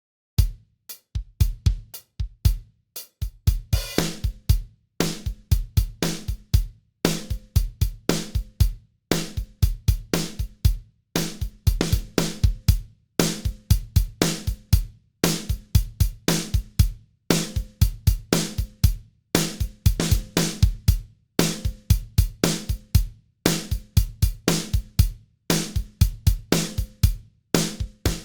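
Drum kit loop of kick, snare, hi-hat and cymbals repeating about every two seconds, run through a variable-mu tube compressor plugin, an emulation of the Fairchild 670, as drum bus glue.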